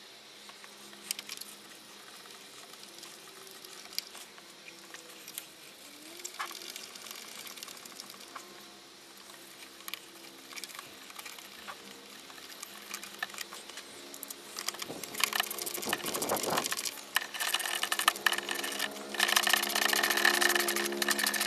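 A hand ratchet clicking in bursts as bolts are run back in on a car's diesel fuel filter housing, with a few small metallic taps. The rapid clicking comes in two runs in the second half, over a steady hum of several pitched tones that grows louder toward the end.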